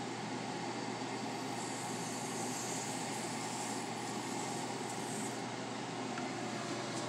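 Water running from a watering wand into potting soil, a hiss that lasts a few seconds in the middle, over a steady mechanical hum.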